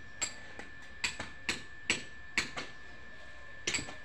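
Sharp, irregular knocks of a hand tool striking bricks, about two a second, with a lull of about a second past the middle.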